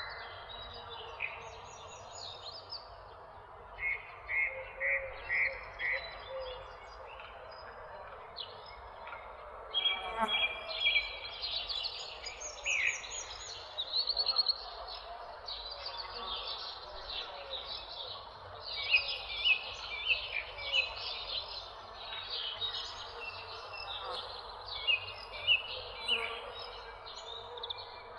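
Several small songbirds chirping and trilling, with many short, high calls overlapping over a steady background hiss. The calls get busier about a third of the way through.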